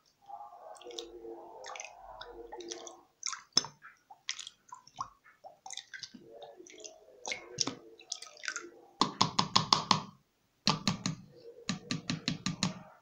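A small plastic cap being swished and rinsed in water inside a plastic jug: water sloshing with small clicks of plastic. In the second half come two runs of quick, regular rapping taps.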